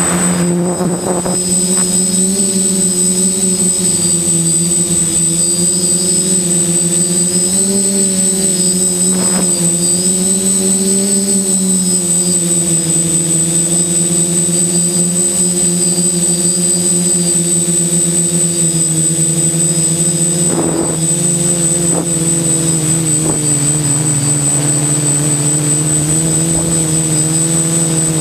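DJI F450 quadcopter's motors and propellers buzzing steadily in flight, heard close up from the camera on the frame, the pitch wavering slightly with throttle. A thin, steady high whine sits above the buzz.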